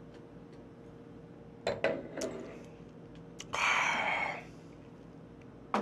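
A man finishing a glass of wine in one go: quiet at first, then a couple of sharp knocks as the wine glass goes down on the wooden table, and about a second later a loud, breathy exhale after the drink.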